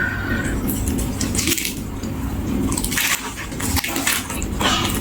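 Close-up chewing of food: wet, squishy mouth sounds with short crisp crunches.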